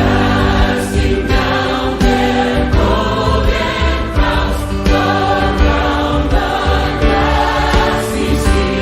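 A group of voices singing a Christian worship song with instrumental accompaniment.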